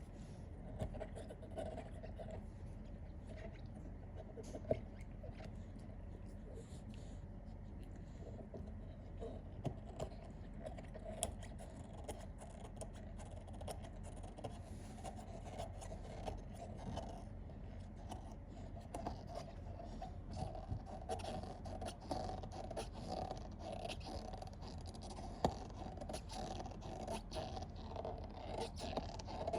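A Rottweiler playing with a toy: scraping and scratching with many scattered clicks, over a steady low hum.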